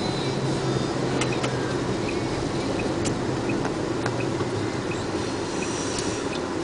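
Truck engine running and road noise heard from inside the moving cab: a steady low hum with light clicks and rattles, and a faint ticking about twice a second in the second half.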